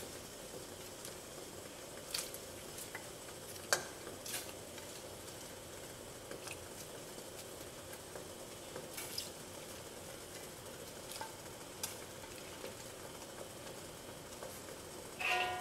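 Pot of water boiling with napa cabbage stalks blanching in it: a steady, quiet hiss of bubbling water. Scattered light clicks run through it, and a short ringing clink comes just before the end.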